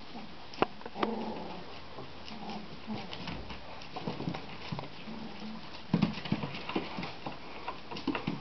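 Three-week-old border collie puppies playing: short puppy whines and grunts come every second or two, over scattered clicks and scratches of paws on newspaper. About six seconds in, a louder flurry of clicks and calls.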